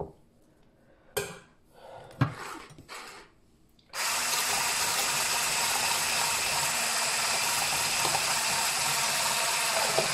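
A few light knocks, then about four seconds in a Braun hand blender fitted with its whisk attachment starts. It runs steadily for about six seconds, whisking thick chocolate custard and cream in a tall plastic beaker.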